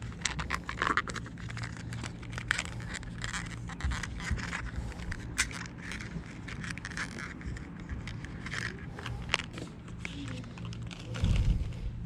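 Hands handling fishing tackle: a clear plastic tackle box and plastic bags of lures clicking, scraping and crinkling in quick irregular bursts, with a louder rustle near the end. A steady low hum runs underneath.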